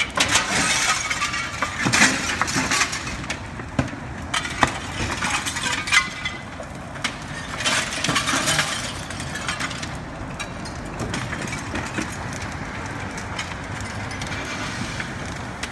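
A building fire crackling and snapping, with glass cracking and clinking as it breaks in the heat. Sharp cracks come in dense clusters through roughly the first nine seconds, then fade into a quieter steady noise.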